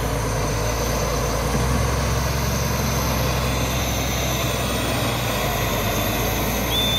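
Caterpillar 140G motor grader's diesel engine running steadily under load as the machine grades and rips dry dirt. A short high whistle sounds right at the end.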